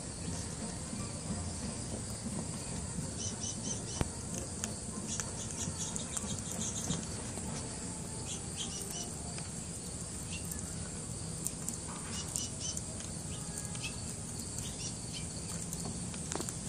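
Outdoor natural ambience: a steady low rumble with short, high chirps scattered in small clusters throughout.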